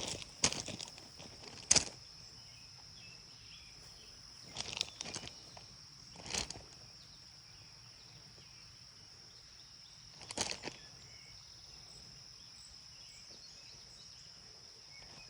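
Steady high-pitched insect chorus, with a few short rustles or knocks at intervals.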